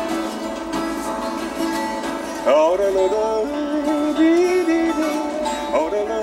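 Twelve-string acoustic guitar strummed while a man sings along. His voice slides up into a held note about two and a half seconds in, and slides up again near the end.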